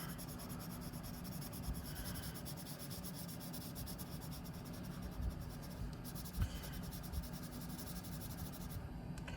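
Paper blending stump rubbing back and forth across drawing paper, a continuous scratchy scraping with small ticks from the strokes.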